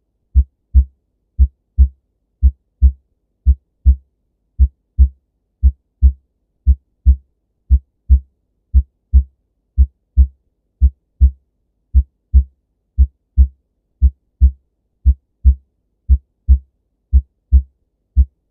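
Normal human heart sounds: a steady lub-dub, the first and second heart sounds as two short low thumps close together, the pair repeating about once a second. The gaps between beats are clean, with no murmur.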